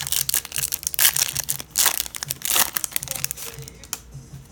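Plastic foil wrapper of a trading card pack crinkling and tearing as it is ripped open, with several louder rustles, fading near the end.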